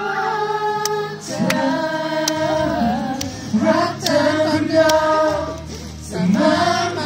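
Live pop singing of a Thai ballad into a handheld microphone over music, with many voices of the crowd singing along in held phrases.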